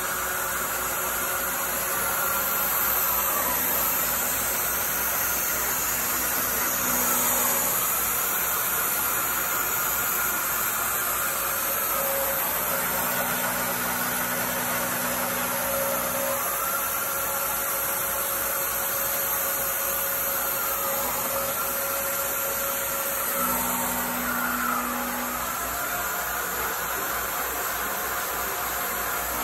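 CNC milling machine cutting a metal block with an end mill under a hissing mist-coolant spray. A whine rises, holds for a few seconds and falls back, about every four seconds, as the cutter feeds along each pass.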